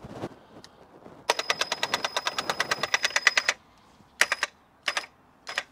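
Ego string trimmer's Line IQ head powered-winding trimmer line onto its spool: a fast, even run of clicks, about ten a second, with a thin whine for about two seconds. Three short bursts of the same winding follow as the line is drawn fully in.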